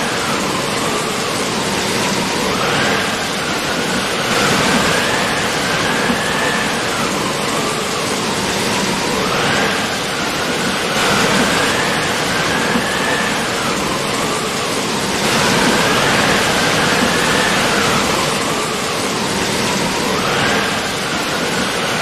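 Steady, loud rushing hiss of water, with a faint whistling tone that rises and falls every few seconds.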